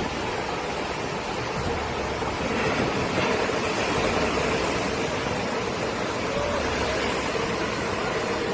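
Steady rushing noise of a hurricane's wind and water, even and unbroken with no distinct events.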